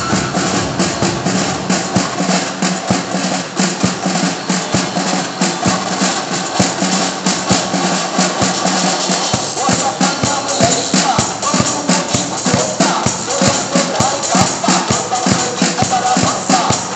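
Drum kit played at a steady beat with fast cymbal hits, along with recorded music.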